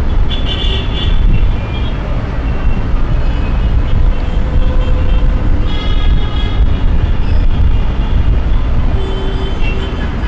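City street traffic: a steady, dense rumble of passing vehicles, with a few brief higher-pitched sounds over it near the start and again about six seconds in.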